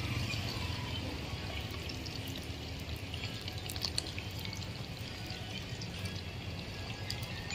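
Duck pieces deep-frying in a pot of hot oil: a steady bubbling sizzle scattered with small pops and crackles.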